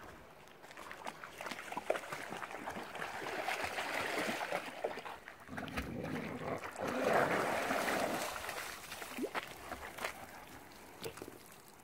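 Dogs splashing through shallow water as they swim and wade out of a pond. There is sloshing water with small splashes, growing louder twice and loudest a little past the middle, then dying down as they leave the water.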